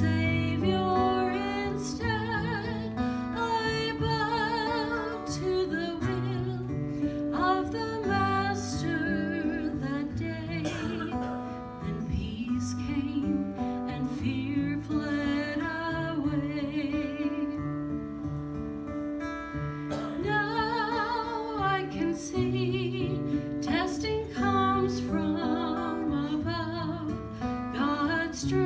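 A woman singing a solo with vibrato into a handheld microphone, over steady instrumental accompaniment.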